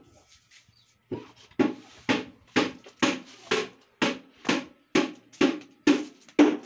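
Steady rhythmic hammering, about two blows a second, starting about a second in, typical of work on wooden speaker cabinets.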